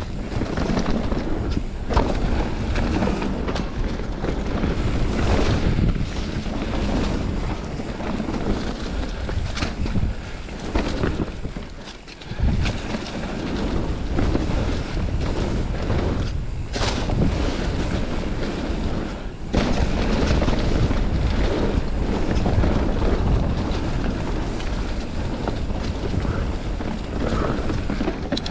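Enduro mountain bike riding down a dirt forest trail: wind rushing over the microphone, tyres rolling over dirt and dry leaves, and frequent knocks and rattles from the bike over bumps. It quietens briefly about twelve seconds in.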